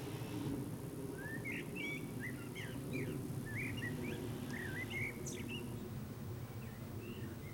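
A small bird chirping repeatedly in short rising and falling notes over a steady low hum, with the chirps dying out near the end.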